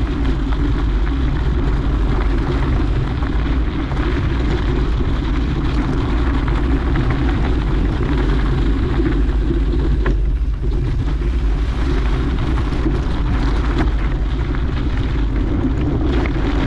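Steady rush of wind buffeting the microphone while riding a mountain bike on a dirt trail, with the bike's rolling noise underneath; it eases briefly about ten seconds in.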